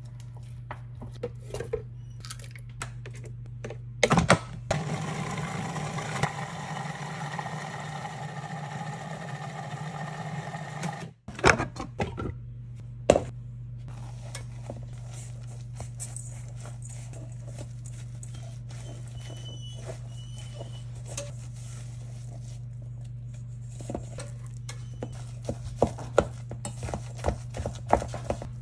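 A food processor runs for about six seconds, blending the cooked butternut squash, butter and egg, and cuts off abruptly. Before and after it, a utensil knocks and scrapes against a glass bowl as batter is stirred, the knocks coming more often near the end, over a low steady hum.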